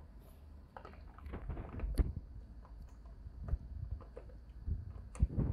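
Shiba Inu puppy chewing and gnawing on a spiky rubber ball: irregular clicks and soft thumps, the sharpest about two seconds in and again near the end.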